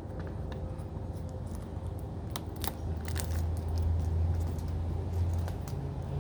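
Scattered clicks and crinkles of plastic wrapping on a DVD case being cut and handled, over a low hum that swells in the middle.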